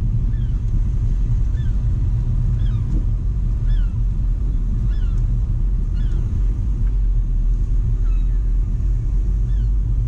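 A car driving slowly, heard from inside the cabin: a steady low engine and tyre rumble. Faint short chirps come through about once a second.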